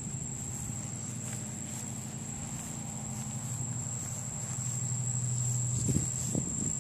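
Steady high-pitched insect trilling from the yard over a low steady hum, with a few short faint sounds near the end.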